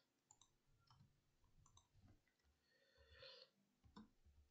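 Faint, scattered clicks of computer keyboard typing, barely above silence.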